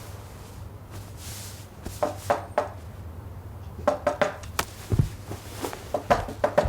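A series of light, irregular taps and knocks, with a low hum underneath.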